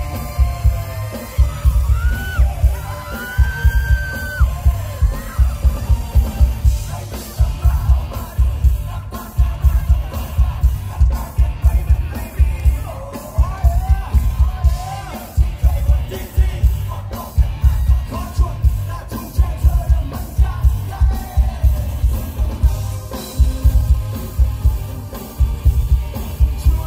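Live band music through a large stage PA, with a heavy, regular bass beat and a singer's voice, plus shouting from the crowd.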